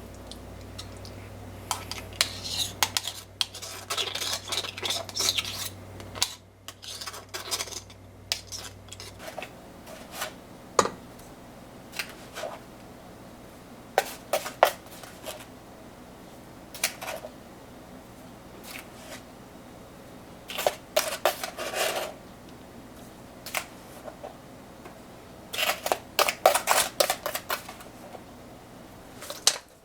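Cooking utensils clinking and knocking against pots and bowls in scattered taps, with busier runs of clatter early on and again near the end. A low hum stops about a third of the way through.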